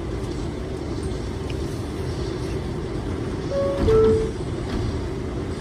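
Steady hum of a subway car standing in a station, then about three and a half seconds in the door-closing chime sounds: two descending tones, the second one longer, warning that the doors are about to close.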